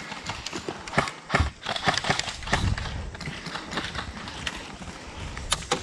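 Footsteps and gear shuffling over the ground, with irregular sharp clicks and knocks and a couple of louder ones near the end.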